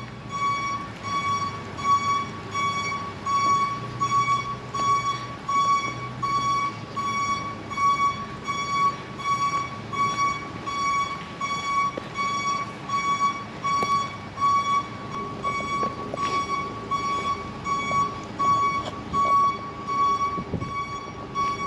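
A truck's reversing alarm beeps steadily, about once a second, while the truck backs up, with a low engine rumble underneath.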